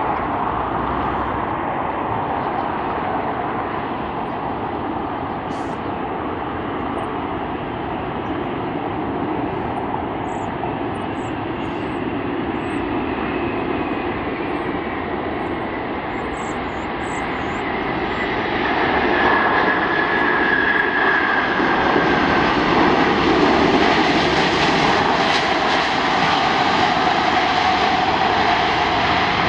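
Jet engines of an Airbus A380 on approach and landing, a steady engine noise that grows louder about two-thirds of the way through, when a whine comes in.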